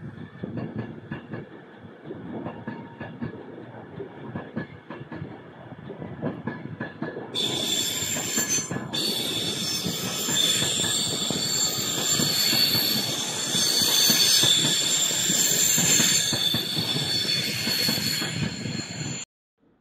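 Electric passenger train running past on the rails, wheels rumbling; about seven seconds in, a loud, high-pitched wheel squeal of several tones at once sets in and holds until the sound cuts off abruptly near the end.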